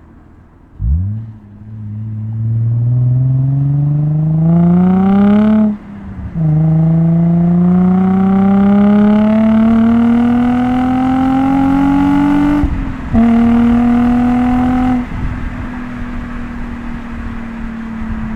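Nissan 350Z V6 through a Z1 Touring cat-back exhaust, pulling hard through the gears. The pitch climbs, drops sharply at each of two upshifts, then settles to a steadier cruise and eases off near the end, with a deep, toned-down tone.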